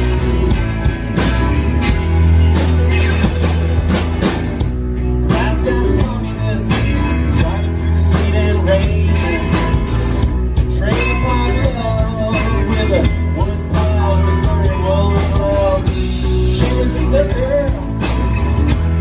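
Live rock band playing an instrumental passage: electric guitar, bass and drum kit, with a bending lead melody over the middle of the passage.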